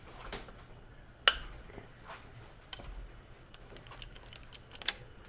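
Scattered light metal clicks and clinks of engine parts and hand tools being handled on a bare engine block, with one sharp clink about a second in and a quick run of small clicks near the end.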